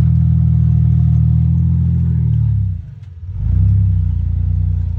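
Vehicle engine running with a deep, steady low rumble. It drops away sharply just under three seconds in and picks back up about half a second later.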